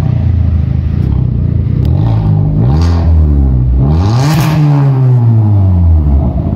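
Hyundai Verna's engine through a freshly fitted aftermarket loud exhaust, idling and then revved twice. The first rev climbs and falls about two seconds in; a higher rev about four seconds in settles back slowly to idle.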